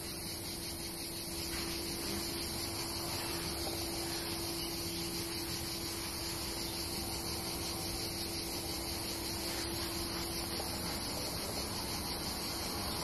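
Steady background hiss with a faint constant hum underneath, no distinct events.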